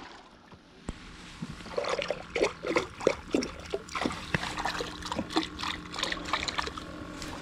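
Hands being rinsed in lake water over the side of a boat: irregular splashes and trickles of water, starting about a second and a half in.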